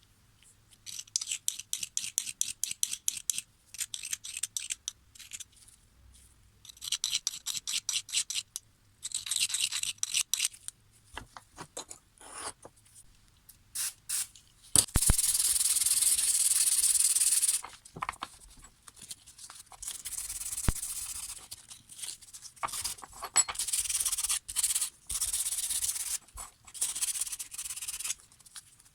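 Rapid back-and-forth abrasive strokes worked by hand over a Felco No. 2 secateur blade, in bursts of several strokes a second. About halfway through, a steady hiss runs for about three seconds.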